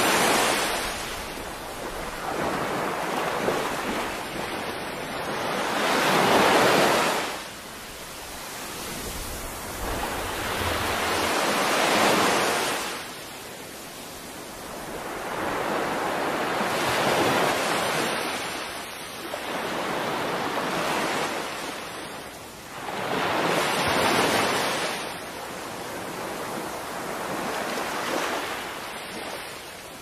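Small waves breaking and washing up a sandy shore: a surge of surf that swells and fades about every five to six seconds.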